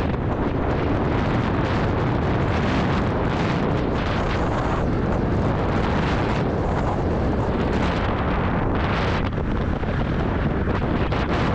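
Wind buffeting a GoPro's microphone while riding an electric scooter at speed: a steady, loud rushing noise.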